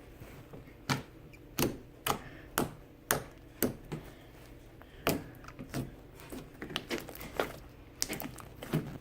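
Glue slime made with shaving cream being squished and poked by hand, giving sharp popping clicks at an uneven pace of about two a second.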